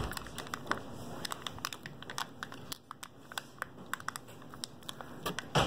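Foil wrapper being peeled and crinkled off a Kinder Surprise chocolate egg: a run of small crackles and rustles, with a louder crackling burst near the end.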